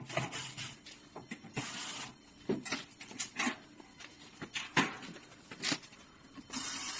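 Screws being undone by hand from a float valve's ring plate: irregular clicks, taps and short scraping sounds of the screwdriver and loose parts being handled.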